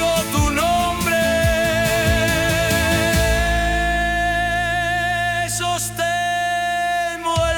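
Song: a single voice holds one long note for several seconds over a backing band, with drum hits in the first few seconds giving way to a sustained low chord.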